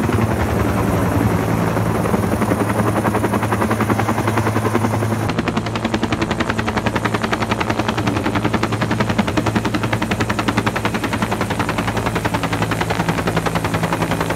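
Bell UH-1 "Huey" helicopter flying low overhead with a water bucket slung on a long line: the rapid, steady beat of its two-blade main rotor over a low engine hum.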